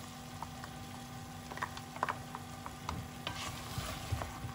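Wooden spatula stirring thick coconut paste into simmering chicken masala in a pressure pan, with a faint sizzle and scattered light scrapes and taps against the pan, over a faint steady hum.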